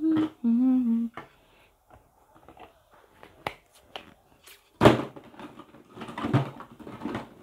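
A woman humming a tune for about the first second, then scattered light taps and clicks of things being handled on a work table, with one sharp knock nearly five seconds in, the loudest sound.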